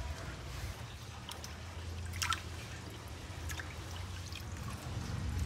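Kitchen knife working raw pork on a round wooden chopping block: a few scattered light knocks and scrapes of the blade, the sharpest a little over two seconds in, over a low steady hum.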